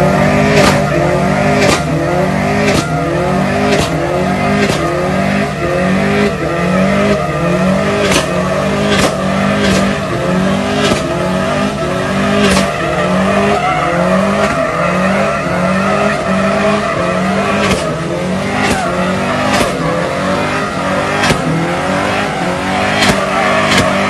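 Suzuki Samurai running hard with its tyres squealing: a steady high engine note with a wavering squeal over it and a sharp crack about once a second.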